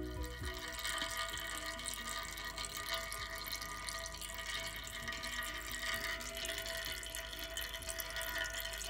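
Old transfer case oil trickling steadily in a thin stream from the open drain plug of a 2008 BMW 535xi's transfer case during an oil change.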